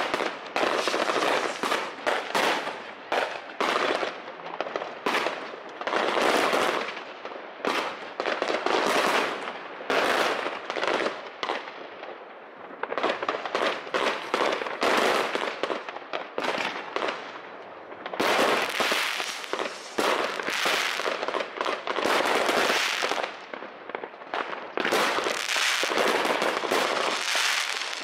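Aerial fireworks bursting in a dense, near-continuous barrage of bangs and crackles, easing briefly twice before picking up again.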